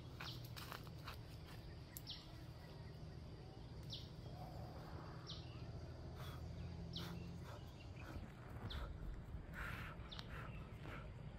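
A bird repeating a short, high, falling call about every one and a half seconds, over a low steady outdoor rumble.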